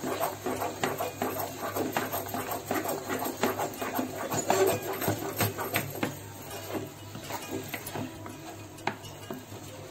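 A spatula pressing and turning thick, sticky cooked dough in a non-stick pan: a quick run of soft slaps, scrapes and squelches that thins out after about six seconds.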